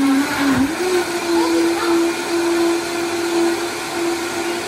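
Countertop blender running at speed, blending a fruit smoothie: a loud rushing whir with a steady motor whine whose pitch dips briefly and then settles a little higher about a second in.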